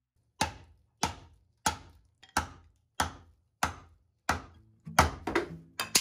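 Hammer blows driving a steel wedge into an elm log to split it: eight sharp, evenly spaced strikes, about one and a half a second, then quicker, overlapping knocks near the end. The elm's interlocking grain makes the log hard to split.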